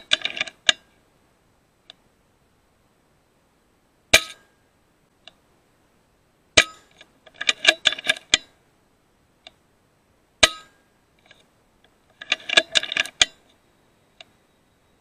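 A .22 FX Impact M3 PCP air rifle fired several times, each shot a single sharp crack a few seconds apart. Between the shots come short bursts of rapid metallic clattering with a ringing tone.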